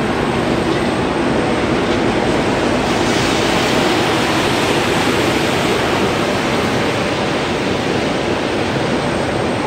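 Steady rushing noise of heavy rain falling, even and unbroken, with no distinct pitched sounds.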